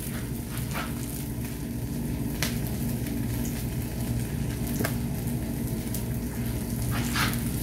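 Steady sizzling hiss of food cooking on a hot griddle, over a low steady hum, with a few faint clicks.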